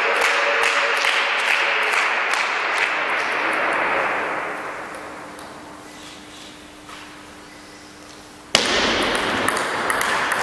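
A loud noisy wash that fades away over a few seconds, leaving a faint steady hum. About three-quarters of the way in the sound cuts back in abruptly, with sharp clicks of a table tennis ball on bats and table during a rally.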